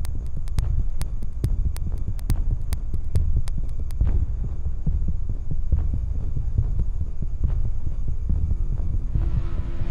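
Deep, low drone of a suspense film soundtrack, with sharp scattered clicks through the first four seconds and a hissing swell rising in near the end.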